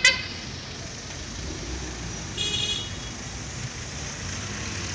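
Street traffic noise, with a short, loud vehicle horn toot right at the start. About two and a half seconds in there is a brief high-pitched tone.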